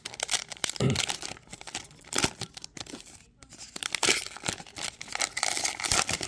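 Foil wrapper of a trading card pack being torn open and crinkled, crackling in several short spells.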